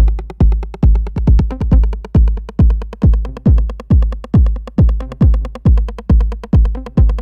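Electronic techno track driven by a heavy drum-machine kick on every beat, each hit dropping in pitch, about two and a half hits a second, over fast ticking hi-hats.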